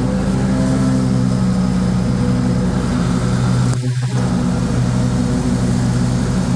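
Swisher Z-Max zero-turn mower's 27 hp Briggs & Stratton V-twin engine running steadily at high speed with the blades engaged. The sound drops out for a moment about four seconds in.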